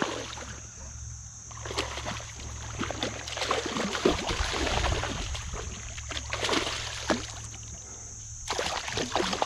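Water splashing and sloshing in irregular bursts as a hooked bass is fought up to the kayak, loudest about four seconds in.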